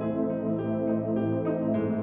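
Soft background music: calm new-age style with held, sustained notes.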